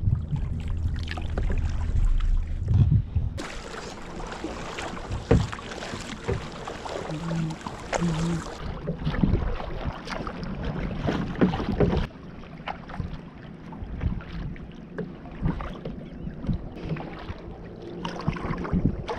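Kayak paddling on open water: a double-bladed paddle dipping and splashing in short repeated strokes, with water lapping at the plastic hull. Wind rumbles on the microphone for the first few seconds.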